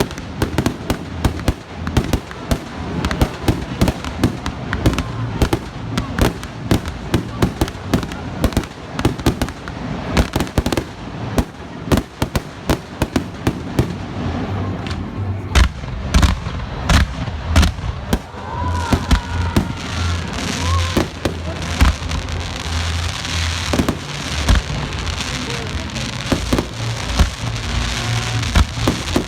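Fireworks display: a rapid string of shell bursts and bangs, with a few sharp single bangs around the middle and a spread of crackling through the later part.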